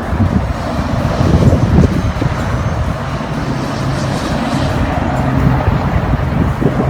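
Wind buffeting the microphone in gusts, loudest about one to two seconds in, over a low steady hum.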